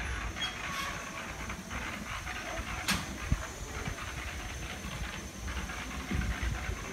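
Rustling and swishing of water hyacinth and weeds as a person wades and steps through a weedy pond edge, with a sharp click about three seconds in and a low knock just after.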